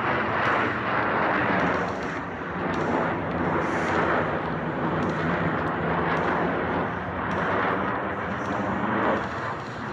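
Aircraft engine noise at an airshow: a loud, rough, continuous roar with a low pitched drone underneath, swelling and easing several times as the aircraft passes.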